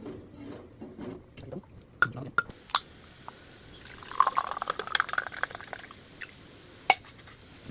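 Warm canned milk poured from the can into a glass for about two seconds, after a few sharp clicks and knocks of the can being handled. A single clink comes near the end.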